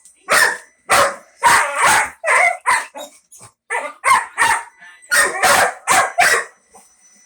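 Dog barking rapidly and repeatedly at a remote control toy car: about a dozen loud barks in quick clusters of two or three, with short pauses between.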